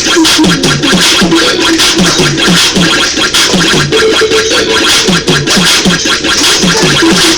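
Loud recorded music with a fast, steady beat and record-scratch effects.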